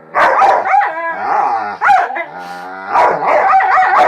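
Two dogs vocalizing back and forth in a 'talking' exchange: drawn-out, wavering howls and whines with short yips, the pitch sliding up and down with hardly a break.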